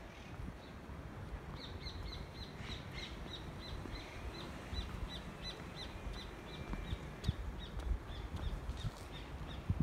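A bird calling a long, even series of short, high notes, about three a second.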